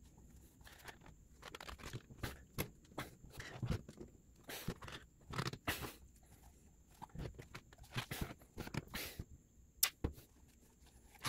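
Rubber throttle grip being twisted and worked off a lubricated plastic throttle sleeve by hand: a faint, irregular run of short rubbing and scraping noises with sharp little clicks, and paper towel handling.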